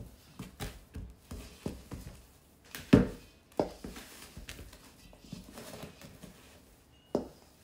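Wooden spoon stirring thick bread dough in a stainless steel mixing bowl: an irregular run of knocks and soft slaps as the spoon works the dough and strikes the bowl, the loudest about three seconds in.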